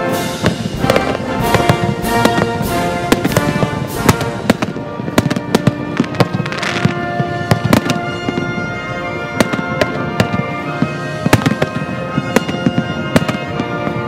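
Aerial fireworks shells launching and bursting in many sharp, irregular bangs, several a second at times, over steady music.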